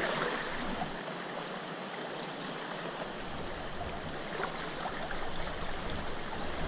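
Shallow river water flowing over rocks, a steady babble of running water.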